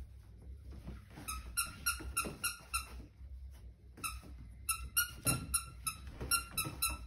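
A squeaky plush toy squeezed over and over, about five squeaks a second, in two runs with a pause of about a second between them.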